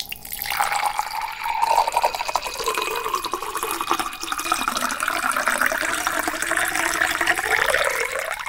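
Sound effect of beer pouring and splashing: a steady gushing rush of liquid whose pitch rises slowly in the second half, cutting off sharply at the end.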